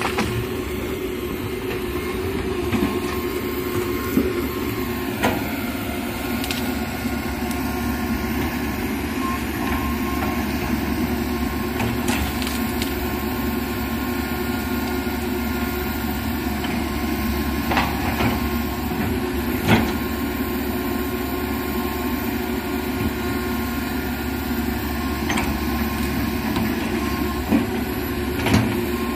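Komatsu PC195 hydraulic excavator's diesel engine running steadily as the machine works its bucket through brush. A few sharp knocks and snaps are scattered through it.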